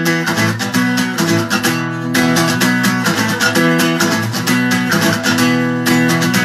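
Acoustic guitar strummed in a steady rhythm, chords ringing on without singing.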